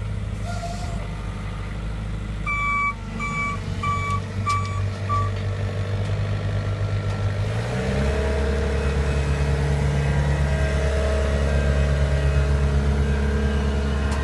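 Diesel engine of a small construction machine running steadily, with its reversing alarm beeping five times a few seconds in. About eight seconds in the engine note shifts and grows a little louder, as under more load.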